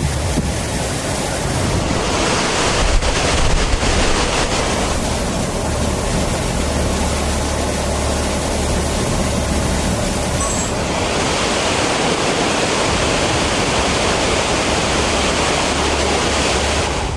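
Loud, steady rushing noise of hurricane wind and water, changing character about two seconds in and again near eleven seconds, over a low steady hum.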